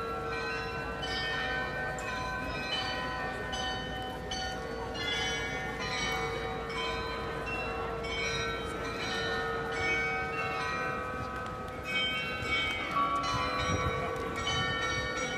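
The bells of the Munich Rathaus-Glockenspiel playing a tune: many tuned bells struck one after another, each note ringing on and overlapping the next.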